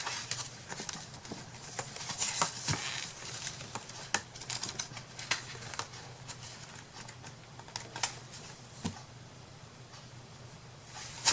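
Scattered light clicks, taps and rustles of craft supplies being handled on a tabletop, over a faint steady low hum.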